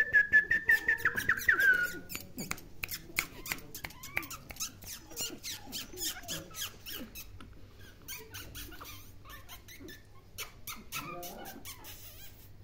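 Young Shih Tzu puppies whining and squeaking: one long, high, wavering whine in the first two seconds, then scattered short squeaks among quick clicking sounds.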